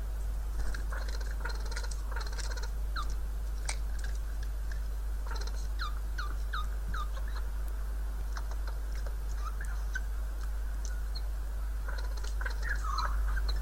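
Siberian jay giving soft mimicking calls: scattered short, hooked whining notes mixed with faint clicking, in groups with a quieter stretch in the middle. This is part of the run of its calls that sounds like bleating and whining.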